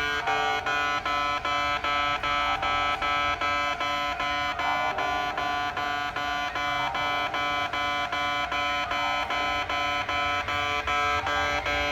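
Kintetsu in-station railway level crossing's electronic warning alarm sounding its distinctive 'pe-pe-pe-pe' tone: a fast, even string of beeps with several pitches sounding together.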